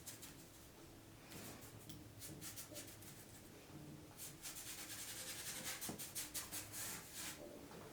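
Scratchy hand strokes of a tool or abrasive rubbing across a surface: a few scattered strokes at first, then a quick, dense run of them, loudest in the second half.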